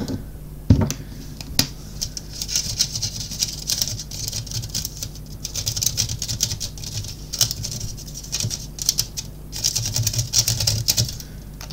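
Crumpled aluminium foil crackling and rustling as it is drawn on and handled, a run of small clicks and crinkles that come and go in bouts.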